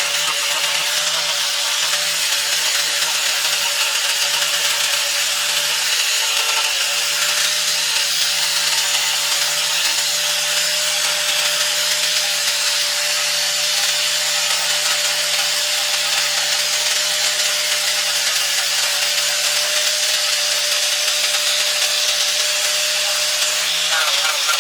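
An electric power tool running steadily at constant speed with a continuous abrasive hiss as it works wood.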